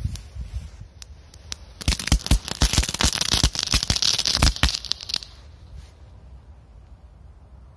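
Korsar-4 firecracker going off as a spray of sparks: a few scattered pops, then about three seconds of rapid crackling and hissing that cuts off suddenly.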